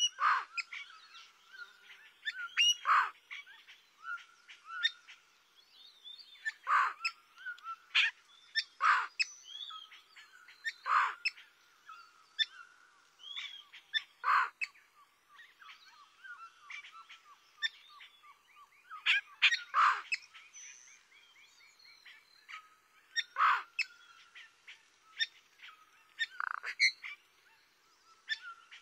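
Birds calling: loud calls that slide down in pitch every few seconds, over softer chirps, trills and a faint steady whistle.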